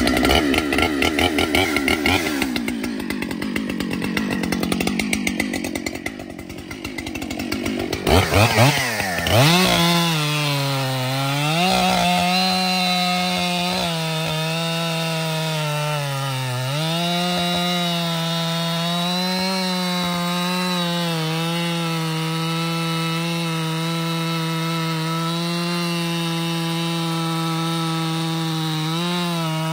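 Brand-new Husqvarna 592 XP two-stroke chainsaw idling, then throttled up about eight seconds in. It holds at high revs as it bores into the base of a white oak. The engine note dips briefly twice as the chain bites into the wood.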